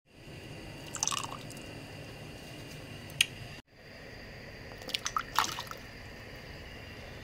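Soup pot of water with chicken heating on the stove: a steady low hiss with a few scattered small wet pops and ticks. The sound breaks off briefly once midway.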